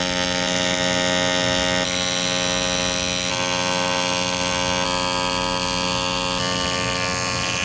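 AC TIG welding arc on an aluminium radiator tank seam: a steady electric buzz held through a long continuous bead, its tone shifting slightly a few times.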